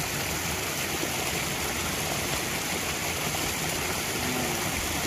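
A steady, even rushing noise, like running water, with no breaks or distinct events.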